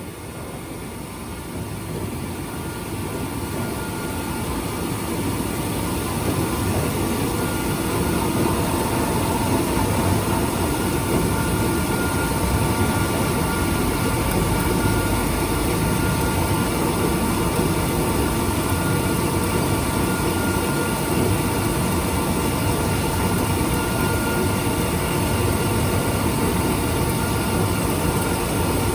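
Milling machine fine-milling an A2 tool steel plate: a steady machining noise with faint whining tones that grows louder over the first several seconds and then holds steady.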